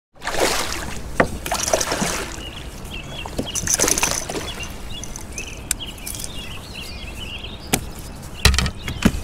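Water splashing and sloshing around a kayak as a hooked smallmouth bass thrashes near the surface during the fight. A few sharp knocks come near the end as the landing net is brought out.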